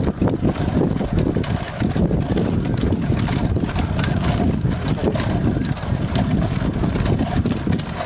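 Wind buffeting the microphone in a steady low rumble, with scattered sharp clicks and clacks throughout.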